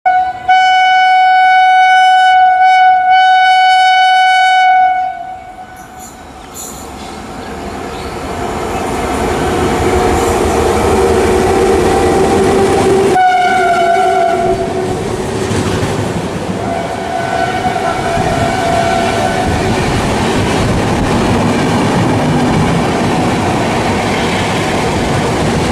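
Locomotive horn of the Vivek Express giving one long blast of about five seconds. The train's running noise of wheels on rails then rises and stays loud, with a shorter horn blast about halfway through and a fainter one a few seconds later.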